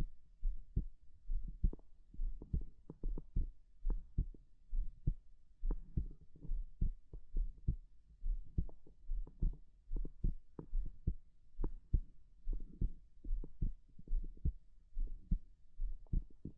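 A human heartbeat heard close up: a steady, regular rhythm of soft low thumps.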